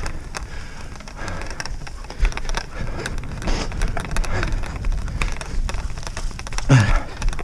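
Wheeled dryland dog rig rolling over a rough grass and mud track behind two running sled dogs: a steady low rumble with dense rattling and crackling from the wheels and frame. A short low falling sound comes near the end.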